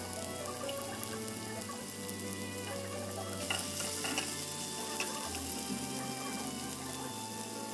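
Chopped onion, tomato and bell pepper sizzling in hot oil in a nonstick frying pan, a steady hiss with small pops, while a spatula stirs them through.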